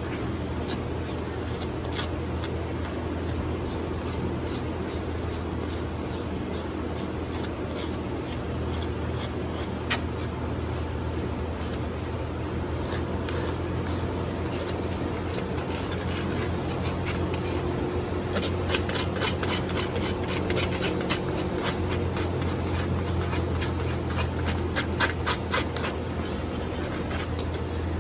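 Farrier's rasp filing a horse's hoof in quick repeated strokes, the strokes coming thicker and louder for several seconds past the middle, over a steady low hum.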